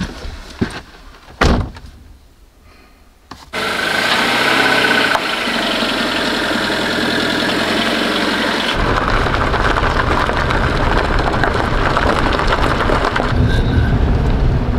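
A car door thuds shut, then a car engine starts suddenly about three and a half seconds in and runs steadily. About nine seconds in, a deeper low rumble joins as the car gets under way.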